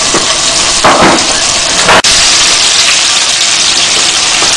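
Ginger and cumin paste sizzling in hot oil in a wok: a loud, steady frying hiss.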